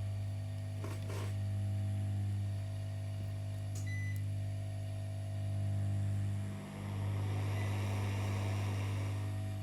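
Steady low electrical hum from bench equipment. About seven seconds in, a soft crackling sizzle joins it, of the kind flux makes boiling under a soldering iron on a circuit board.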